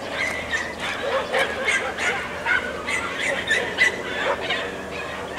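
Podenco andaluz hunting dogs giving tongue in quick, repeated high yips, two or three a second: the pack in full cry on a rabbit.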